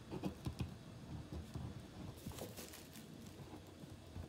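Faint small taps and a brief scratchy rustle about two seconds in, from someone jotting down notes at a table.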